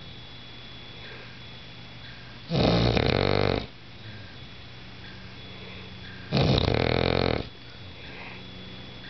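Bulldog snoring: two loud snores, each about a second long, about four seconds apart.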